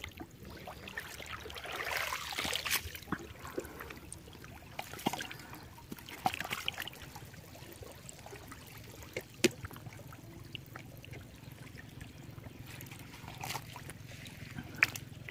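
Water trickling and splashing lightly, in a few soft bouts, with scattered small clicks and knocks.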